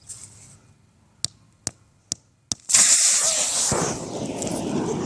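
Four sharp strikes, about half a second apart, driving a nail into a swollen DJI Phantom LiPo battery pack, then a sudden loud rushing hiss as the punctured cell vents. The hiss eases after about a second and goes on as the battery burns.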